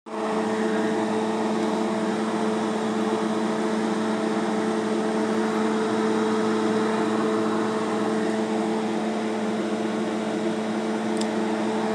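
Steady hum of an electric fan motor running at a constant speed, with a low drone and a second tone about an octave above it over an even whoosh of air.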